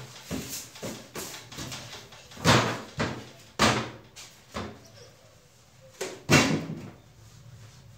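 Household cleaning noises: a run of about eight short, irregular knocks and scraping rustles as things are brushed and handled, the loudest about two and a half, three and a half and six seconds in.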